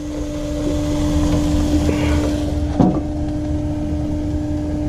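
Portable propane grill burning at full gas under its closed lid: a steady burner hiss with a steady low hum under it. A short knock comes just under three seconds in.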